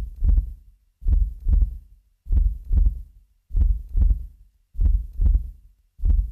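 Heartbeat sound effect: slow, deep double thumps ('lub-dub') repeating evenly, about six beats, or roughly 48 a minute.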